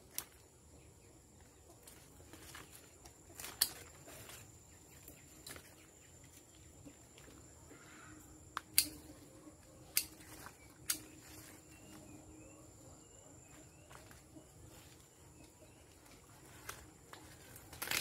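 Hand pruning shears snipping small shoots off a tree trunk: a handful of sharp, short clicks at irregular intervals, two in quick succession about nine seconds in.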